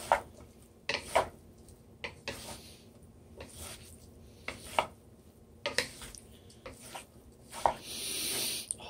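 Two wooden spatulas stirring and tossing a broccoli and beef stir fry in a skillet: scattered scrapes and knocks of wood against the pan about once a second, with a longer hiss near the end.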